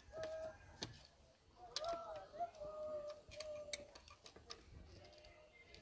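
Sharp metallic clicks and ticks as pliers work binding wire out of a steel meter socket, with a held pitched tone sounding over them twice, longest in the middle.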